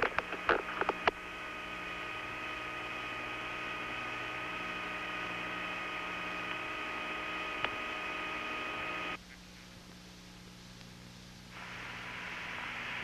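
Steady electrical hum and hiss on an old recording, with several clicks in the first second and one more near the middle. Partway through, the hiss and higher tones drop out, leaving only a faint low hum for about two seconds before the noise comes back.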